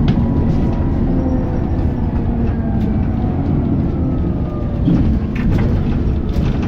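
Alexander Dennis Enviro400 double-decker bus in motion, heard from inside: steady engine and road rumble, with a faint whine falling in pitch about halfway through.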